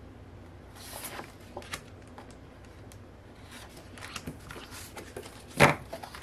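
Paper and plastic packaging rustling as large folded posters and other paper goods are handled, with scattered light clicks, a longer rustle about a second in, and one loud thump a little past five and a half seconds.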